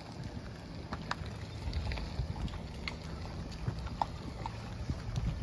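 Tow vehicle running low and steady as it reverses the boat trailer down the ramp into the water, with wind on the microphone and a few faint clicks.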